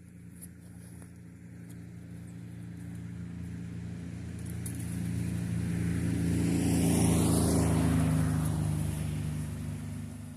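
A motor vehicle driving past: its engine and tyre noise grow steadily louder to a peak about seven to eight seconds in, then fade away, the pitch dropping as it passes.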